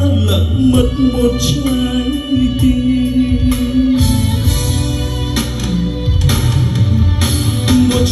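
A sung song with instrumental backing and heavy bass, played loud through a line array PA system.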